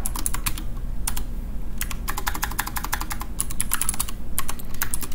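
Typing on a computer keyboard: quick, irregular runs of key clicks, densest from about two to three and a half seconds in.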